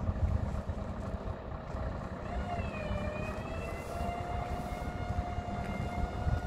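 Heavy truck running as it slowly hauls a house on a low-loader trailer, under low wind rumble on the microphone. About two seconds in a steady whine with several overtones sets in, wavering briefly before it holds one pitch.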